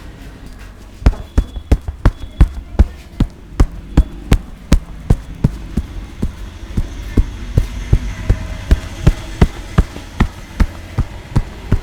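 A massage barber's hands striking in a steady percussive rhythm, sharp slaps about three a second, starting about a second in.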